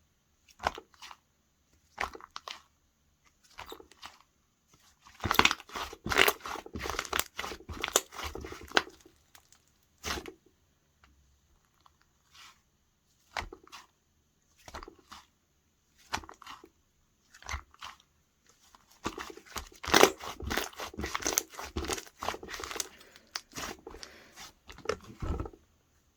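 Slime being squeezed and poked by hand, making crackling, popping clicks. Single pops are scattered throughout, with two longer runs of dense crackling, one about five seconds in and one near twenty seconds in.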